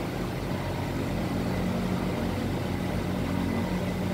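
Steady low hum of a running machine, even and unchanging.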